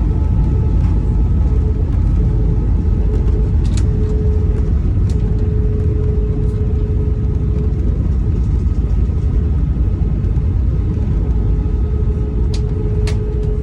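Steady rumble of an Airbus A319 airliner heard from inside the passenger cabin: engine and airflow noise with a constant hum, and a few light clicks.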